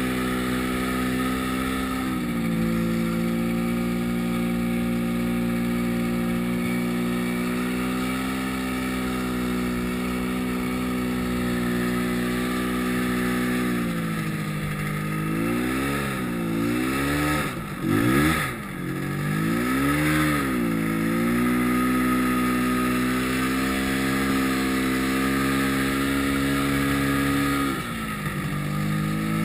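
Yamaha snowmobile engine running at a steady speed under the rider; about halfway through, the revs drop and climb again several times in quick succession, with a louder burst near the middle of that stretch.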